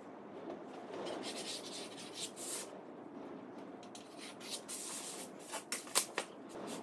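Pencil scratching in strokes along a steel rule on a sheet of board, with the rule and hands rubbing against the board and a few sharp clicks near the end.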